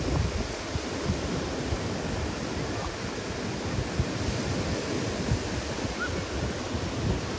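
Low surf breaking and washing up a sandy beach in a steady rush, with wind buffeting the microphone.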